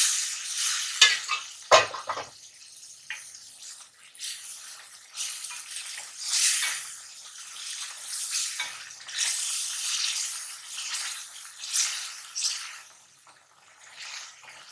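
Beef stock poured into hot oil and beef in a metal karahi, sizzling loudly as it hits the pan, then sizzling in repeated waves as a wooden spatula stirs and fries the meat. A couple of knocks from the spatula on the pan about one to two seconds in.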